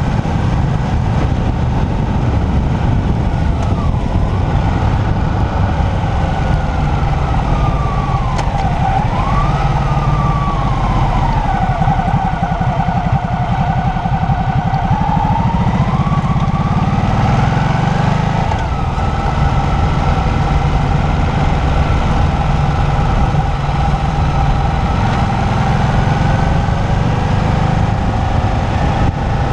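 Motorcycle engine running under way with heavy wind noise on the microphone. Its pitch dips twice early on, falls and stays low about twelve to fifteen seconds in as the bike slows for a tight bend, then climbs again as it speeds up.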